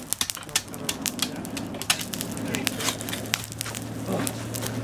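Burning charcoal and freshly tapped slag at the base of a bloomery iron-smelting furnace crackling and popping in rapid, irregular sharp clicks, over a low steady hum.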